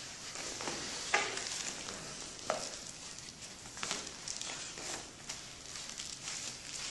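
MMA grappling on vinyl-covered foam mats: bodies, skin and gloves scuffing and sliding on the mat, with a few short sharp knocks or squeaks about one, two and a half and four seconds in.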